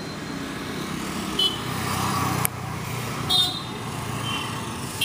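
Street traffic: a motor vehicle's engine hum swelling for about two and a half seconds, then dropping off sharply, with a few brief high-pitched toots.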